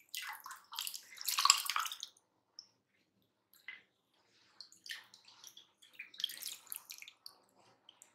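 Milk sharbat with jelly cubes splashing and pouring as it is scooped into a plastic cup and ladled in a steel bowl, in two spells: a louder one in the first two seconds and another from about four and a half seconds in.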